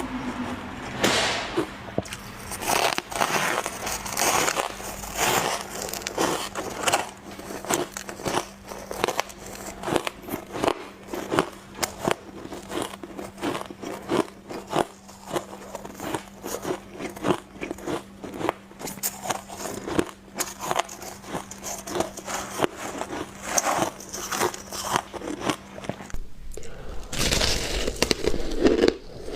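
Shaved, refrozen ice being bitten and chewed in the mouth: a continuous run of crisp crunches in quick succession, with a brief lull near the end before louder crunching resumes.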